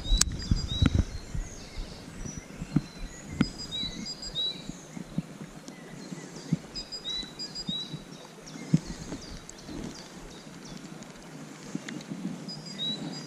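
Songbird chirping with short, repeated high notes over the steady rush of a shallow river, with a few sharp clicks as the baitcasting reel is handled.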